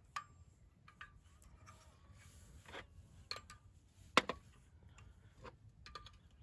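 Scattered light clicks and knocks of a camping pot and portable gas stove being handled, with one sharp double click about four seconds in.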